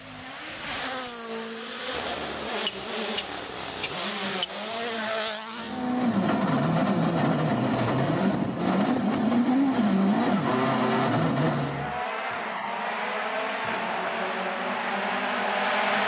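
WRC Rally1 rally cars, with 1.6-litre turbocharged four-cylinder engines, driven flat out on a tarmac stage: the engines rev up and drop through quick gear changes. The sound is heard partly from the roadside and partly inside the car's cockpit, changing sharply twice as the shots change.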